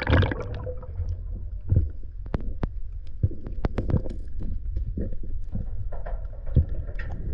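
Muffled low rumble of river water stirred by someone wading and groping in the riverbed, with scattered sharp clicks and knocks.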